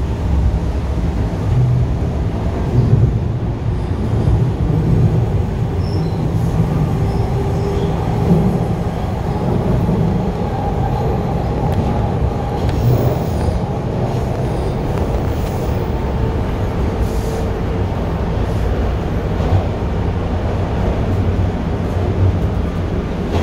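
Bombardier T1 subway train running at speed between stations, heard from inside the car: a steady, loud rumble of wheels on rails with a faint whine above it.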